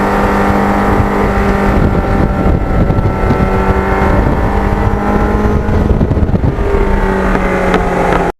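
Kawasaki GPX750R Ninja's inline-four engine running while riding at a steady pace, its pitch dipping and rising slightly, with wind rumble on the microphone.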